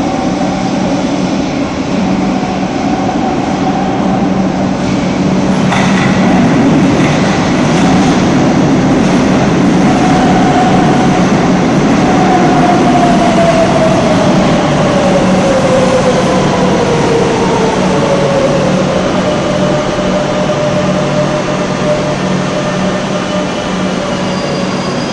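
Madrid Metro 7000-series train (unit 7055) running into the station: the rumble and clatter of its wheels grows louder about six seconds in as it comes alongside. A whine then falls steadily in pitch as the train slows for its stop, over a steady low hum.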